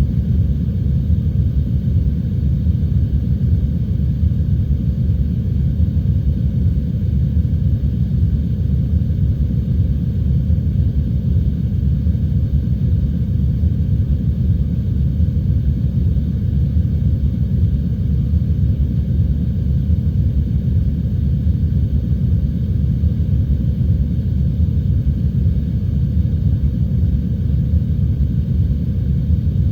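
Heavy rain and wind as one steady, deep rumble, dull and muffled, with almost no high hiss or patter.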